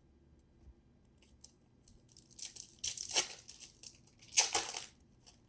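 A trading-card pack wrapper being torn open and crinkled, in two rustling bursts, the second, about four seconds in, the louder.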